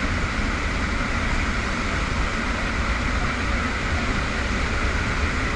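Steady rush of airflow and aircraft engine noise through the open jump door of a military transport plane in flight, a deep rumble under a constant hiss.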